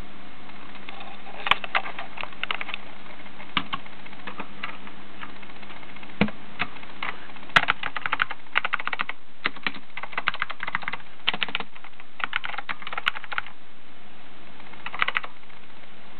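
Typing on a mechanical keyboard fitted with Alps SKCM Salmon switches, a steel plate and Apple Extended Keyboard keycaps: quick runs of key clicks in several bursts, busiest in the middle, then a pause of over a second before a last short burst near the end.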